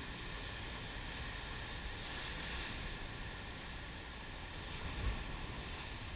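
Ocean surf breaking and foaming over a rocky shore: a steady rush of white water that swells about two seconds in, with a low thump about five seconds in.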